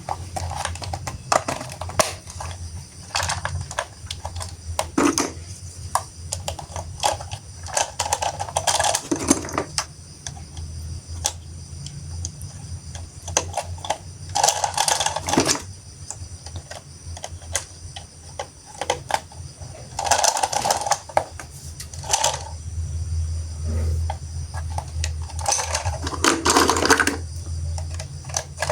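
Small hard plastic toy parts being handled: irregular clicking and clattering, with a few short rustling bursts, over a steady low hum.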